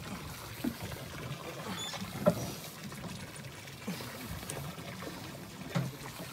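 Sea water lapping and slapping against the side of a small fishing boat, in irregular splashes every second or two, the loudest a little over two seconds in.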